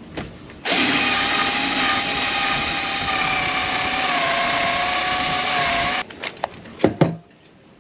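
Cordless drill running steadily as it bores a hole up into a boat's fiberglass hardtop arch, a whine that sags slightly in pitch under load. The drill stops suddenly about six seconds in, followed by a few sharp clicks.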